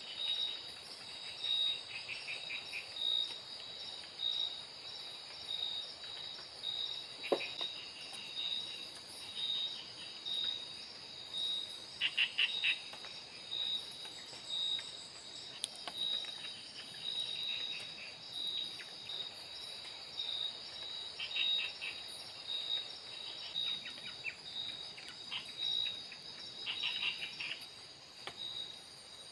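Crickets and other night insects of the tropical forest: a steady high trill with a regular chirp about one and a half times a second. Short bursts of rapid clicking calls come now and then, and a single sharp click sounds about seven seconds in.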